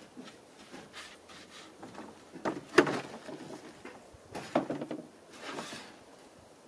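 Light, scattered knocks and clatters of wooden pieces being handled. The sharpest knock comes about three seconds in and another about a second and a half later.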